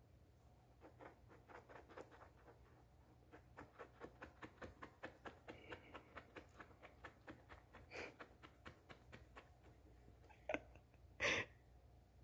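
Fingers scratching a long-haired cat's fur, a faint quick scratching at about four strokes a second. A short louder noise comes twice near the end.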